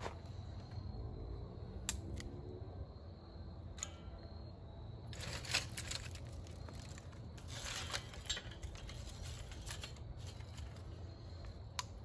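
Dry split bamboo pieces being picked up and handled: rustling and clattering, with a few sharp clicks and two denser bursts of rustling around the middle.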